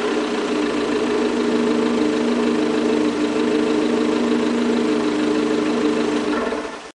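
Abarth 500's turbocharged 1.4-litre four-cylinder idling steadily through its stock exhaust, then cutting off suddenly near the end.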